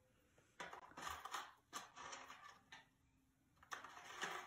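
Soft rustling of a mannequin head's hair being handled and twisted into place by fingers, in a few short bursts.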